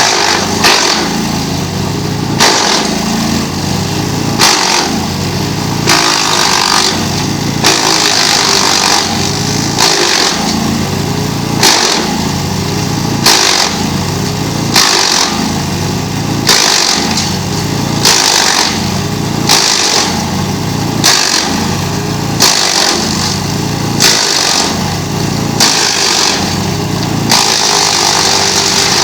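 GreenMech Arborist 130 wood chipper chipping wood on dull blades. The engine note dips and recovers about every one and a half seconds, with sharp cracks of wood being cut, and runs steadier near the end.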